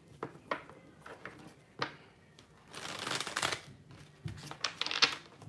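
Tarot cards being shuffled and handled: a few sharp card snaps, then a rush of shuffling about a second long midway, then cards laid down on the table with more quick snaps near the end.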